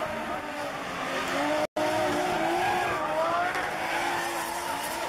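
Two drift cars sliding side by side, engines revving and tyres squealing, with a wavering pitch. The sound cuts out for a split second about a third of the way in.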